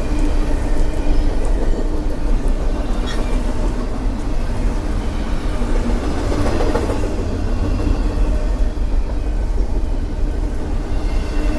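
Container flatcars of a CSX intermodal freight train rolling past, with the steady, loud noise of steel wheels running on the rails.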